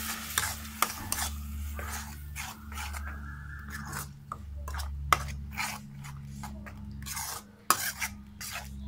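Metal spatula stirring and scraping thick ground masala paste as it fries in oil in a kadai: repeated scrapes and clicks against the pan, two of them sharper, over a steady low hum.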